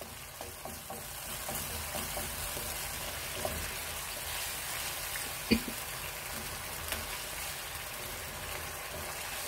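Cubed potatoes in a little spiced water sizzling steadily in a pan over a full gas flame, stirred with a wooden spatula. A single sharp knock about five and a half seconds in.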